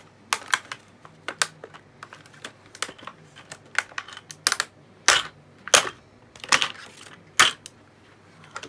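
Clear plastic blister pack being pried open and handled: an irregular run of sharp plastic clicks and crackles.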